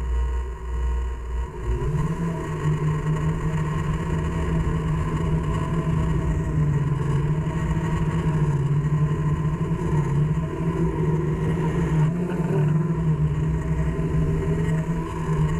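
Blade Chroma quadcopter's motors and propellers humming steadily, starting about two seconds in after a low rumble.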